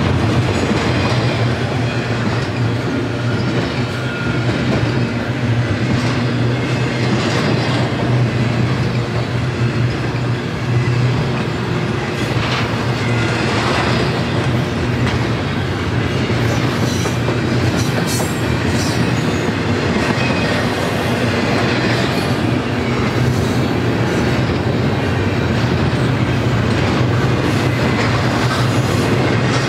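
Double-stack intermodal container cars of a freight train rolling past: a steady, loud rumble of steel wheels on rail, with clicking as the wheels cross rail joints. Now and then there is a faint high wheel squeal.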